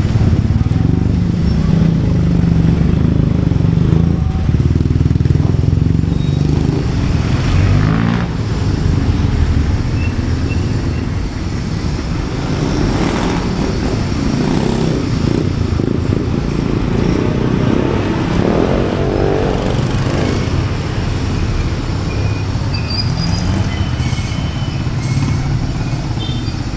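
Street traffic dominated by motorcycle engines running close by, loudest in the first several seconds.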